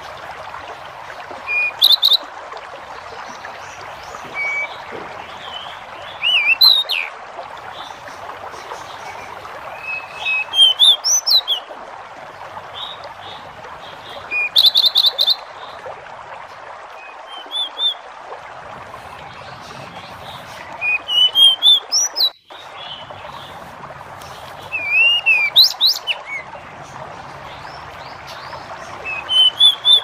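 Pied bush chat (jidengan) singing: short, quick warbled phrases of high chirps and rising and falling whistles, repeated every three to four seconds over a steady rushing background.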